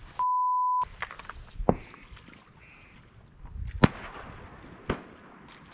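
A half-second censor bleep, one steady high beep, near the start. Then three sharp cracks, the loudest about four seconds in, which are shotgun shots on a duck hunt.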